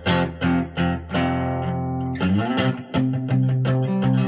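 Electric guitar (Fender Telecaster) playing rock-and-roll rhythm chords. Several short, sharp chord stabs come first, then a chord held for about a second. About two seconds in, a quick rise in pitch leads into further chord stabs.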